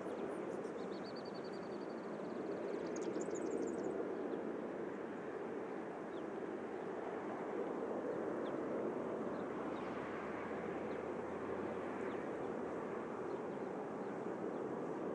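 Steady distant rumble, with a small bird trilling about a second in and giving a quick run of high chirps around three seconds in.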